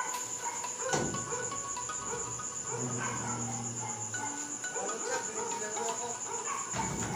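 Crickets chirring in a steady, high-pitched trill.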